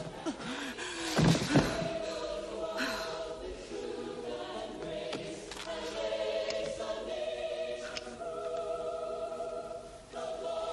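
A choir singing long held notes, with two loud thumps close together about a second in.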